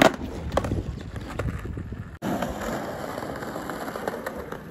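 A skateboard clacks sharply on paving right at the start, followed by a couple of lighter knocks. After a sudden break about two seconds in, skateboard wheels roll steadily over brick paving.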